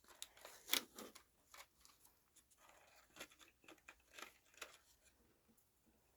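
Plastic snack wrapper being crinkled and torn open by hand: a run of irregular crackles, loudest about a second in, dying away after about five seconds.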